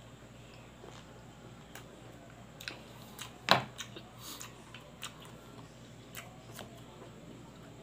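Kitchen scissors snipping pieces of pig intestine: a few short, sharp snips and clicks, one much louder than the rest about halfway through.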